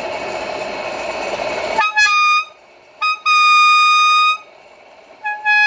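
Air Zound bicycle air horn sounding three loud blasts after a steady hiss: a short one about two seconds in, a longer one of over a second after a brief blip, and a third, lower-pitched one starting near the end.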